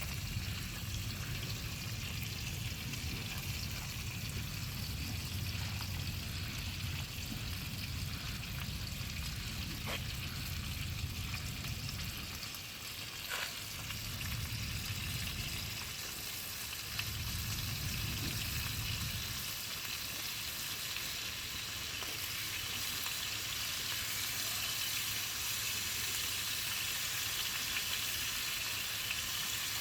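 Fish frying in butter in a pan, a steady sizzle throughout. Under it runs a low rumble that fades out and back a few times.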